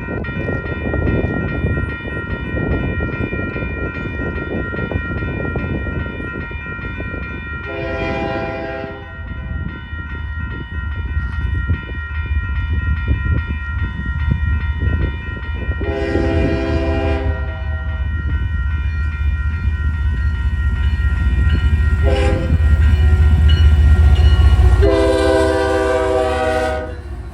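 Grade-crossing warning bell ringing steadily while the approaching GE ES44AC diesel locomotive sounds its horn in the crossing pattern: two long blasts, a short one, then a final long blast near the end. Under it the locomotive's low rumble builds, loudest just before the last blast.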